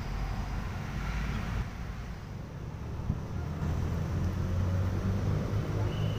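Steady low rumble of road traffic, with a single short knock about three seconds in.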